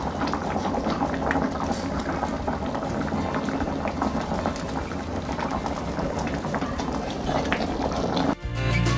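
Yellow coconut-milk curry bubbling at a boil in a stainless steel pan, stirred with a utensil. Background music starts abruptly near the end.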